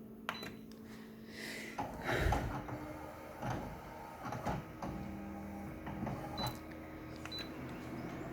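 Photocopier running a copy cycle: a steady hum, then from about two seconds in mechanical whirring with a series of irregular clicks and knocks.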